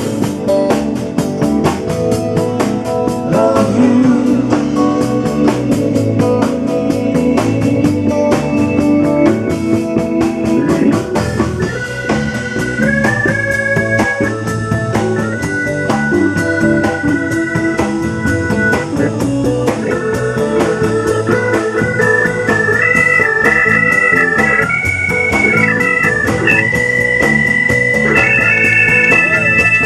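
Live band music with an organ-like keyboard holding chords and playing a sustained melody line. Quick, even drum ticks run through about the first half.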